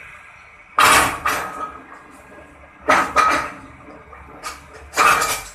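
Powered paper guillotine cutter slicing through a stack of printed visiting cards: three loud cutting strokes about two seconds apart, each with a quick second surge.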